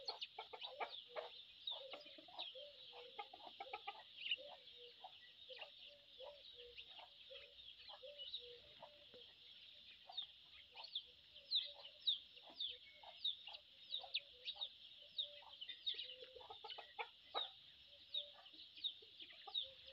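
Chickens clucking in low, repeated calls, over a steady high hiss with many quick, high downward chirps, loudest in the second half.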